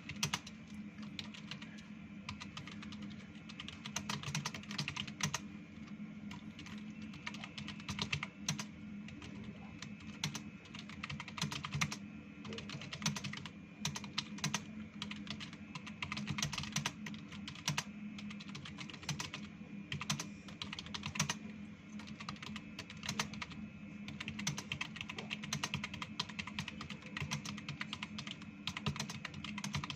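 Fast, continuous typing on a computer keyboard during a timed typing speed test: a dense, uneven patter of key clicks, with a steady low hum underneath.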